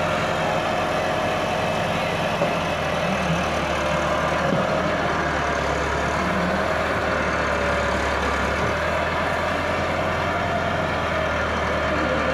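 Massey Ferguson 375 tractor's diesel engine running steadily under load as it pulls a heavily loaded sugarcane trolley. A small knock about two seconds in.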